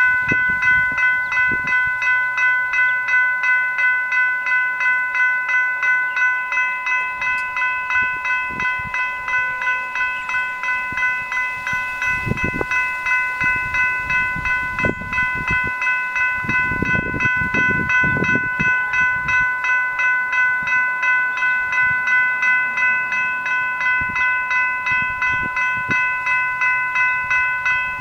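Railway level crossing electronic bells (General Signals Type 3 E-Bells) ringing continuously while the crossing is activated, a rapid ringing tone repeating about three times a second.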